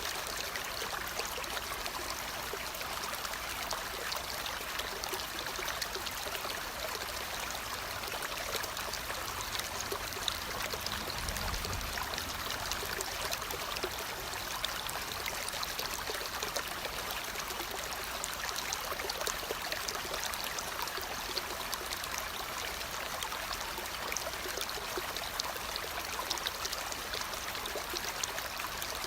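Steady sound of a flowing stream, water trickling and splashing without a break.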